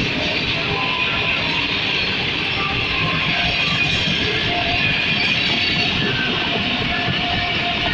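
Pakistan Railways express passenger coaches rolling past close by: a steady rumble and hiss of wheels on rail. Background music is mixed in, its notes clearer in the second half.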